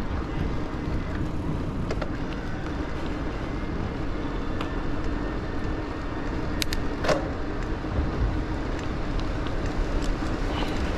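Riding noise from an e-bike rolling along an asphalt path: wind rumbling on the action camera's microphone and the tyres on the pavement, with a steady hum underneath. A few sharp clicks and knocks, the loudest about two-thirds of the way through.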